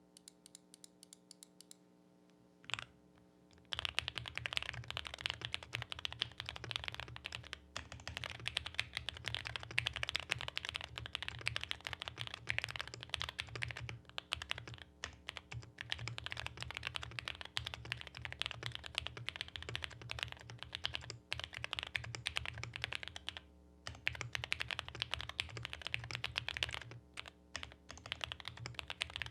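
Fast, continuous typing on a QK65 mechanical keyboard with stock, unlubricated JWICK Black V2 linear switches. After a single keystroke, a quick, dense run of key strikes starts a few seconds in and breaks off only for brief moments.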